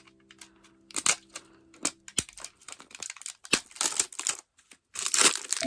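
The wrapper of a blind-packed squishy dumpling toy being torn open and crinkled, in irregular crackly bursts that grow denser and louder near the end.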